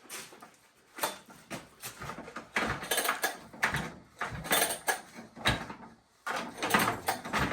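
Recoil starter cord of a new, unfuelled Husqvarna 395 XP clone chainsaw pulled out several times, short rasping pulls with the engine turning over against its compression.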